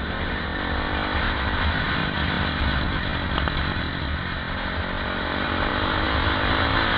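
KTM 520 EXC supermoto's single-cylinder four-stroke engine running at a steady pace on the move, heard onboard with wind rushing over the microphone.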